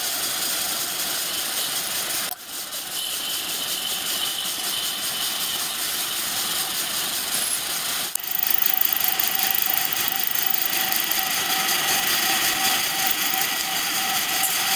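Milling machine running, its cutter working into a cast iron steam cylinder to cut a steam passage, a steady motor whine over the cutting noise. The sound changes abruptly about two seconds in and again about eight seconds in, louder after the second change.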